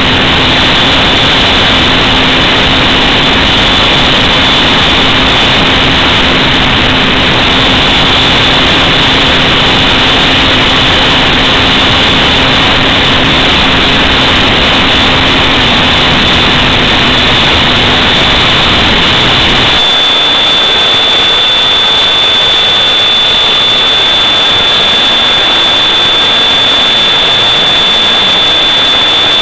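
Loud, steady hiss with a steady high whine over it, the onboard audio of a small FPV aircraft in flight. About two-thirds of the way through, the low hum drops out and the whine turns sharper.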